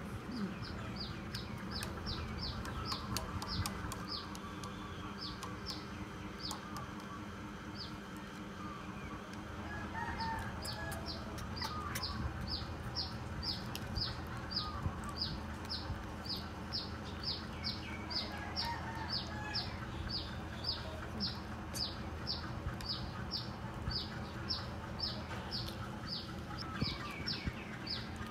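Domestic chickens in the background: a high, falling peep repeated about two or three times a second, in a short run at the start and then steadily through the second half, with a few lower clucking calls in between.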